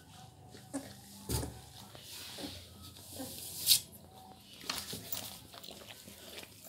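Labrador puppies shuffling and snuffling on cloth in a cardboard box, with scattered small scratches and knocks and a few faint squeaks. A louder scuffing knock comes about three and a half seconds in.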